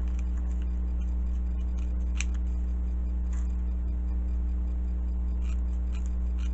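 Floral shears snipping through a strip of Velcro hook tape: a handful of short, sharp snips scattered through, the crispest about two seconds in. A steady low hum runs underneath.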